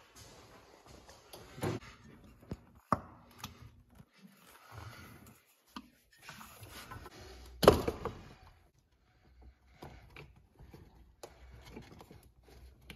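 Hands working in an engine bay: scattered clicks, small knocks and rustling of spark plug wires and their boots being handled and pushed into place, with one louder knock a little before eight seconds in.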